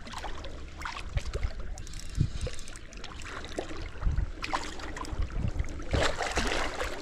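Creek water splashing and sloshing as a hooked smallmouth bass is fought, with scattered knocks and a louder splash about six seconds in.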